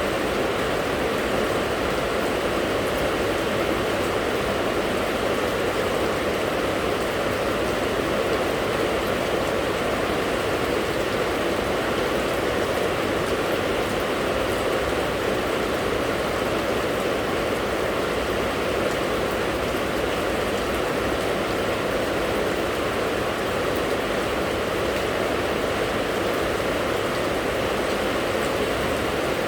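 Steady, heavy rain falling, an even hiss that holds without change.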